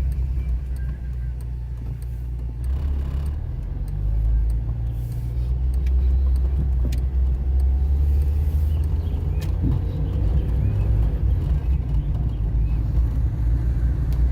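Car driving: a steady low engine and road rumble that grows louder about four seconds in.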